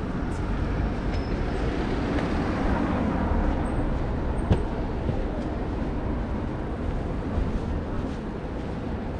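Steady city street traffic noise, a low rumble of passing vehicles, with one sharp click about four and a half seconds in.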